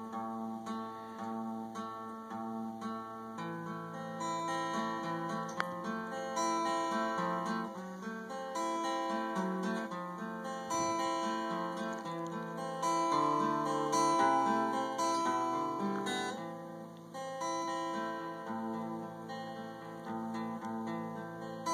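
Acoustic guitar being played, a song of strummed and plucked chords with notes ringing and changing throughout.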